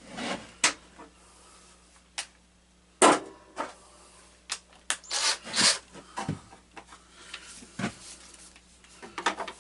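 Metal hand tools and small parts clinking, knocking and scraping at irregular intervals while a bolt on a lawn tractor's starter solenoid is worked loose; the sharpest knock comes about three seconds in, and a quicker run of clinks follows a couple of seconds later.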